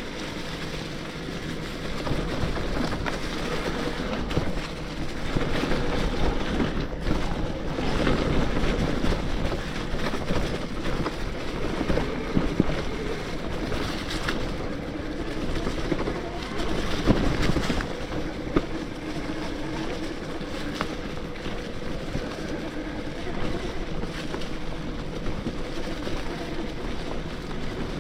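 Riding noise from an electric mountain bike with a BBSHD mid-drive motor on a dirt trail: a steady rush of wind and tyre noise that rises and falls with the ride, and a faint steady tone underneath.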